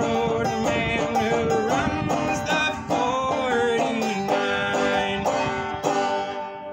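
Banjo being played, a quick, even run of picked notes in a folk tune, trailing off near the end as the tune finishes.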